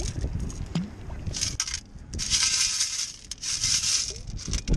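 Small rocks and pebbles clicking and grating against a perforated metal sand scoop as they are stirred and pushed about by hand, in several short bursts, with water dripping off them.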